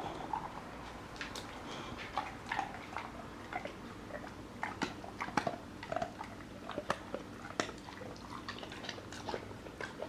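Boxer dog's mouth and nose up against the phone: irregular wet clicks, snaps and snuffles from its muzzle.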